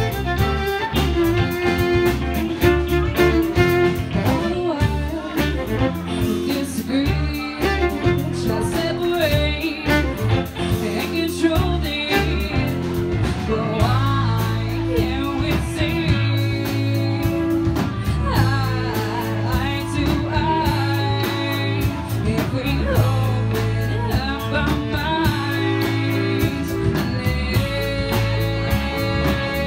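Live band playing a blues-rock song on fiddle, electric guitar, bass and drums, the fiddle to the fore at first. A woman's lead vocal comes in about halfway through.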